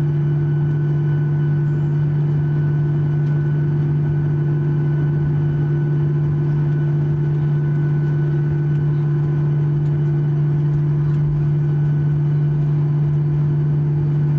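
Steady cabin noise of a Boeing 737-800 taxiing, its CFM56-7B engines at low taxi thrust: a constant low hum with fainter steady higher tones over an even rush of air.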